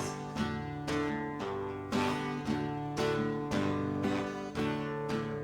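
Acoustic guitar strumming chords in a steady rhythm, about two strums a second.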